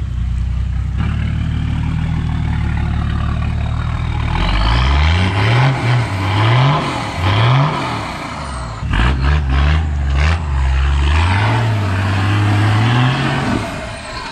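A four-wheel-drive's engine works up a steep, slippery mud-and-rock climb. It runs steadily for the first few seconds, then from about four seconds in it is revved hard in repeated surges that rise and fall about once a second. A few sharp knocks come about nine seconds in, and the engine holds a steadier rev before easing off near the end.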